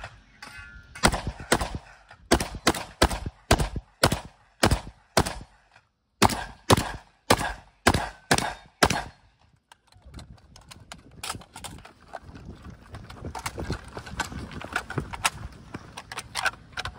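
Rock Island VR80 semi-automatic 12-gauge shotgun fired rapidly, about fifteen shots in two quick strings with a brief pause between them. About ten seconds in, the shooting stops, and a quieter stretch of faint clicks and handling follows during a magazine change.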